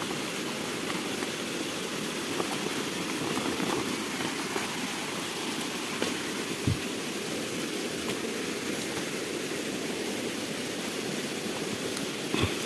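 Steady rushing of running water, with a few faint clicks and one short knock about halfway through as leaves are handled.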